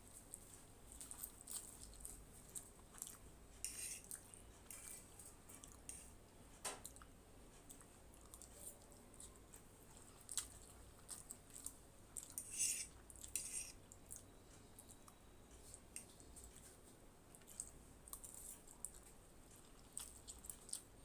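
Close-miked chewing of Maggi masala instant noodles: faint, irregular wet mouth clicks and squishes, with a louder run of them about two thirds of the way through.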